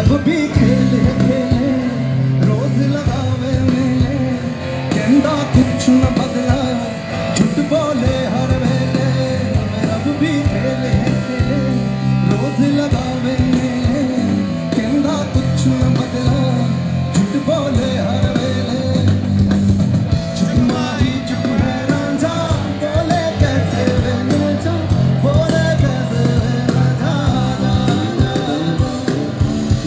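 Live band playing a rock song with a singer: a steady drum beat under guitar and vocals.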